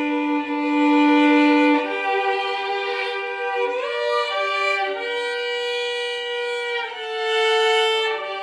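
Solo violin playing a slow hymn melody, one line of long held notes, each lasting about one to two seconds.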